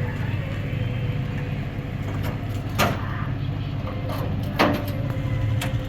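A motor vehicle's engine running steadily, with two sharp knocks, about three and four and a half seconds in.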